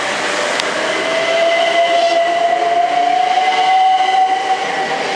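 London Midland Class 350 Desiro electric multiple unit moving past, its traction motors giving a whine that rises steadily in pitch as it gathers speed, over the noise of the wheels on the rails.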